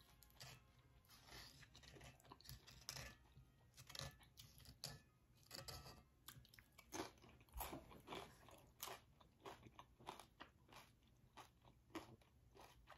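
A person chewing crunchy nacho tortilla chips close to the microphone: faint, irregular crunches, several a second.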